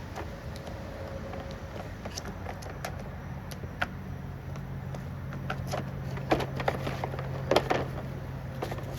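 Hand-cleaning of chainsaw parts: scattered clicks and knocks of metal parts and tools being handled and scrubbed, loudest in two clusters about six and a half and seven and a half seconds in, over a steady low hum that starts about four seconds in.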